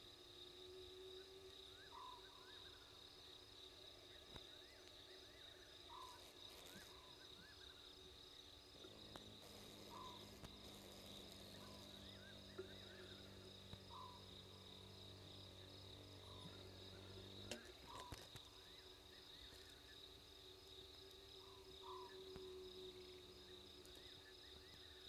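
Faint night insect chorus, a steady high cricket trill, with short quiet chirps about every two seconds. From about nine seconds in, a low mechanical hum from the remote camera's pan-and-zoom motor runs for about eight seconds and stops with a click.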